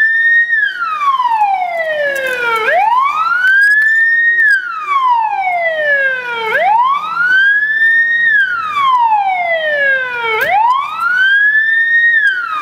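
Police car siren sounding a wail. Each cycle rises quickly to a peak, then falls slowly, repeating about every four seconds, about three times.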